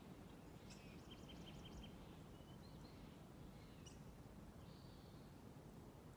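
Faint songbird calls over a low, steady background rumble: a quick run of about five short chirps about a second in, another call about four seconds in, and a buzzy note near the end.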